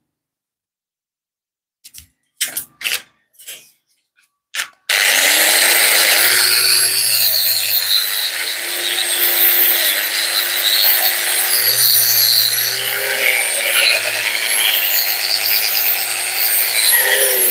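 A few short knocks, then about five seconds in an angle grinder starts up and runs steadily, its disc grinding against a rusty steel suspension coil spring. A constant motor whine sits under a scraping hiss that swells and eases as the disc is worked along the coils, stripping the old paint and rust.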